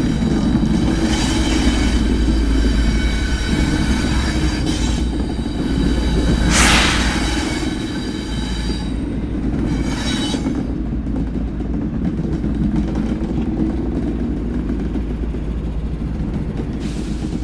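A train running with a continuous low rumble, thin high squealing tones from the wheels on the rails over the first half, and a brief loud burst of hiss about six and a half seconds in; after that the squeal fades and the rumble carries on.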